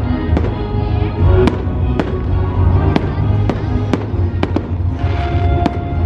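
Aerial firework shells bursting with sharp bangs every half second or so, over music with a heavy bass.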